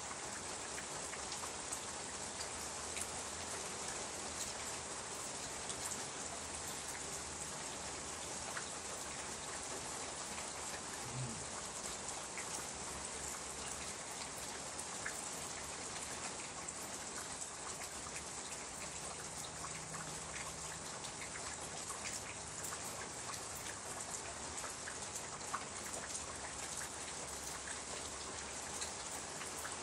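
Steady light rain falling, with scattered single drops ticking close by.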